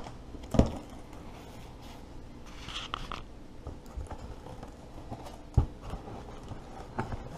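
Cardboard shipping box handled on a tabletop: its flaps rustle, with a few sharp knocks, the loudest about five and a half seconds in.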